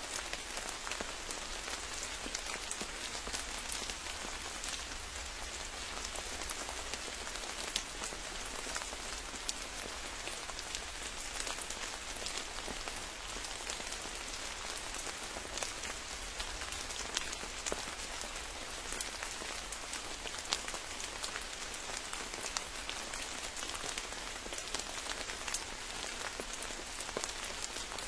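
Steady rain falling, with a dense patter of individual drops ticking on leaves and surfaces.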